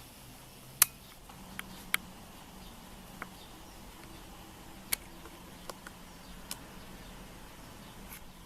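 A handful of light, sharp clicks at irregular intervals over a faint steady room hum.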